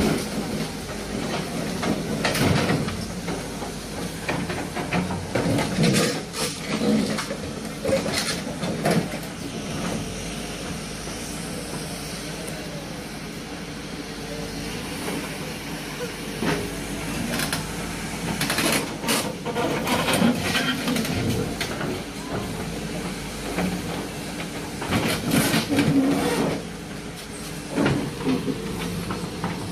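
SANY SY215C crawler excavator's diesel engine running steadily as its bucket drags a wrecked car body. Scattered metal crunches and scrapes come in clusters a few seconds in, around the middle, and near the end.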